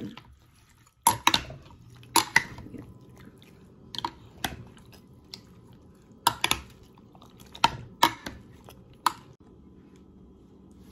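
Two metal spoons tossing raw chicken pieces in a soy sauce marinade in a glass baking dish: sharp clinks of metal on glass, often in pairs, every second or two, with a wet squish as the meat is turned. The clinking stops about nine seconds in.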